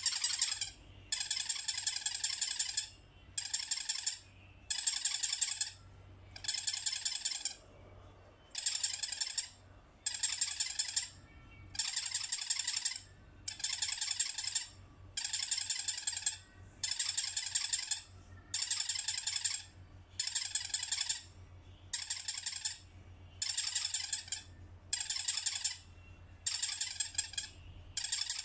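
Squeaker in an elephant soft toy squeezed over and over, giving a high squeak roughly once a second, each under a second long, with a longer pause about seven seconds in.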